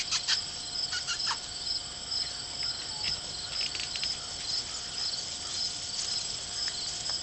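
Insects chirping in a steady, evenly pulsing high-pitched chorus, with a few short clicks in the first second or so.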